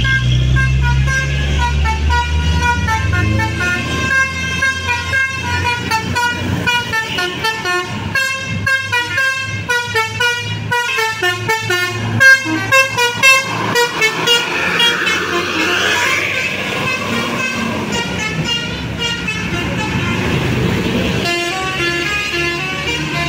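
Bus 'telolet basuri' multi-trumpet air horn playing a fast tune of short tooting notes. A deep engine rumble sits under the first few seconds. The notes give way to a less clear stretch about two-thirds of the way through and start again near the end.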